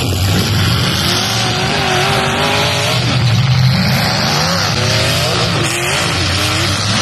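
Several demolition derby cars' engines revving hard at once, their pitch rising and falling, with tyres spinning and skidding on the dirt.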